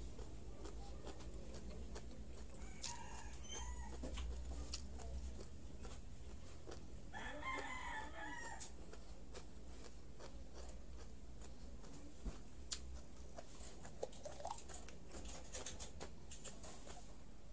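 A rooster crowing in the background twice, briefly about three seconds in and longer around seven seconds in, with a few light clicks later on.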